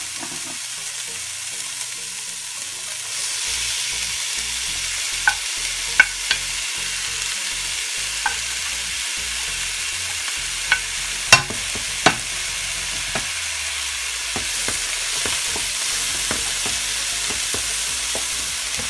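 Ground meat, onions and mushrooms sizzling in a frying pan while being stirred with a wooden spatula. The sizzle gets louder about three seconds in, and a handful of sharp clicks of utensils against the pan come through the middle stretch.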